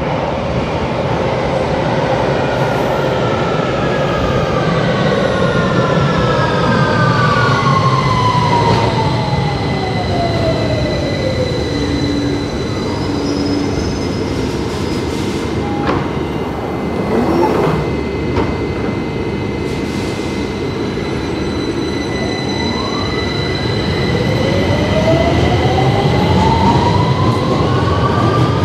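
London Underground tube train arriving and departing. The motor whine falls in pitch as it brakes to a stop over the first dozen seconds. A few knocks and a steady high tone come while it stands. Then the whine rises again as it accelerates away near the end.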